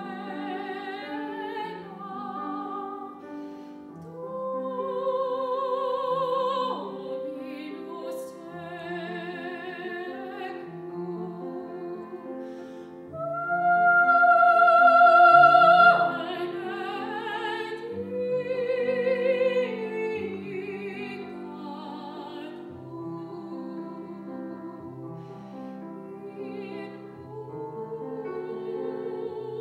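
A woman singing solo in a classical, operatic style with vibrato, accompanied by a grand piano. About halfway through she holds a long, loud high note.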